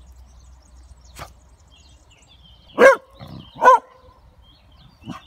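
Beagle hound giving two sharp barks a little under a second apart: its bay at a found quarry, here a tortoise.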